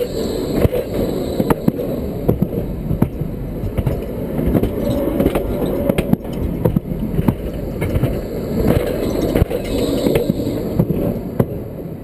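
Light-rail tram passing at close range on the track, its steel wheels rolling along the rails with a steady rumble and many sharp clicks and clacks.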